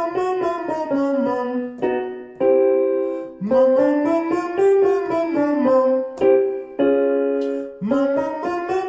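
Vocal warm-up exercise: piano plays a short pattern and chords while a voice sings a rising-and-falling scale over it, the pattern restarting every four to five seconds.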